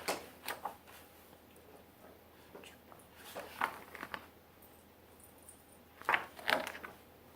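Room tone with a few faint, short rustles and soft handling noises, spaced out over several seconds.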